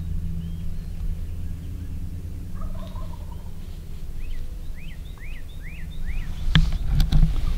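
A distant wild turkey gobbler gobbles faintly about three seconds in, followed by a run of about five short, high bird calls. Near the end come a few sharp knocks and a louder low rumble as the camera is handled and moved, over a steady low rumble of wind.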